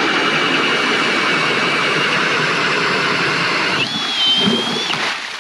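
Milwaukee M18 Fuel cordless drill spinning an Eskimo 8-inch pistol bit ice auger as it bores through thick ice: a steady, loud motor whine over the grinding of the blades in the ice. About four seconds in the whine jumps higher as the auger breaks through and spins free, then it stops just before the end.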